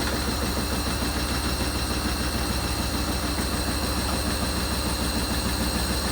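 Hoover HLW585DC washer dryer spinning a full load off balance, running with a steady low drone while the whole machine bounces on the floor. The machine stands unlevel.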